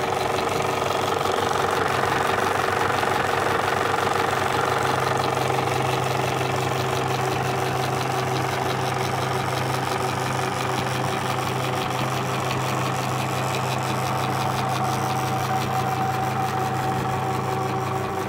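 Old film projector running: a steady motor hum with a fast, even clatter of its film mechanism.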